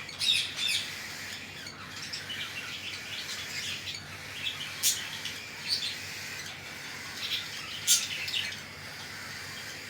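Cockatiels calling: a steady run of short, high chirps and calls, the loudest about a third of a second in, near the middle and about eight seconds in.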